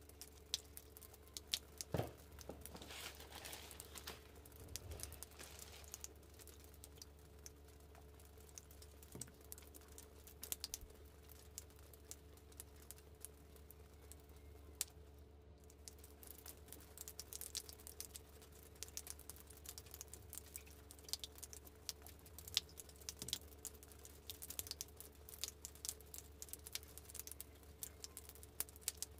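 Close handling noises of a sneaker being turned in the hands: many small irregular clicks and taps, with tissue paper crinkling briefly a few seconds in, over a faint steady hum.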